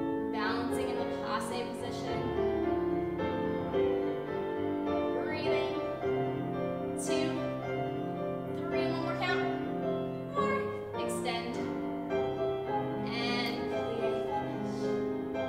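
Instrumental classical music playing as accompaniment for a ballet barre exercise, with a steady melody of held notes.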